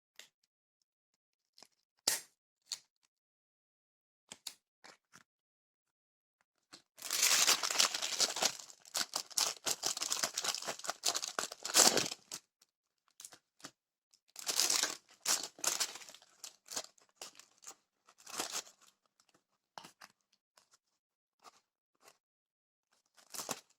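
Packaging of a set of adhesive wall hooks being handled and opened: scattered clicks and rustles, and two longer spells of crinkling and tearing, the first and longest from about a third of the way in.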